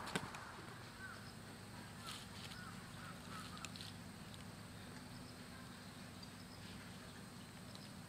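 Quiet pine-grove ambience: a few faint, short bird calls over the first few seconds above a steady low hum, with a sharp click just after the start.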